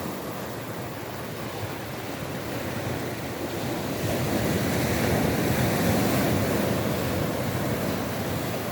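Ocean surf: a steady rush of waves washing in. It swells louder about four seconds in and eases off near the end.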